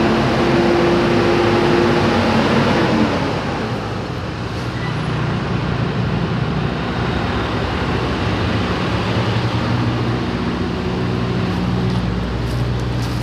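Vehicle engine running steadily with a low hum. About three seconds in its pitch drops and it gets a little quieter, then it settles into a steady lower drone.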